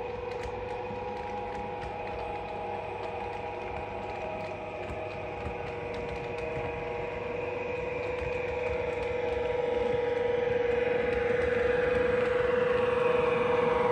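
Model railway Class 92 locomotive hauling sleeper coaches along the track: a steady whine with faint clicking from the wheels on the rails. It grows louder over the last few seconds as the train comes close.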